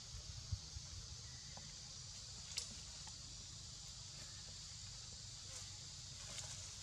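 Quiet forest ambience: a steady high hiss with two soft clicks, about half a second and two and a half seconds in.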